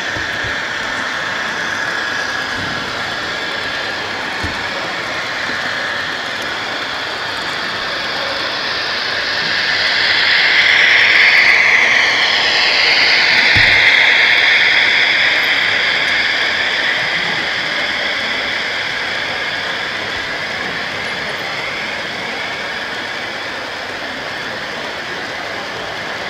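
H0-scale model freight train running along the layout: the locomotive's motor and the wheels rolling on the track make a steady rolling noise. It grows louder about ten seconds in as the train passes close, with a whine sliding up and down, then eases off.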